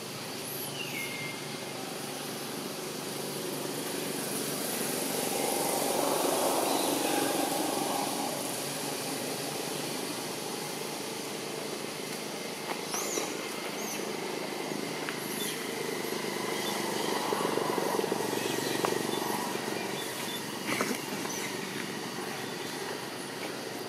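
Outdoor ambience with a steady background hum and two passing vehicles that each swell and fade over a few seconds, one about five seconds in and another past the middle, with a few faint high chirps.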